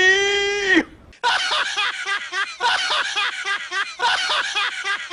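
A voice holds one long, slightly arching note for under a second, then a dubbed-in clip of quick, repeated laughter runs for about four seconds.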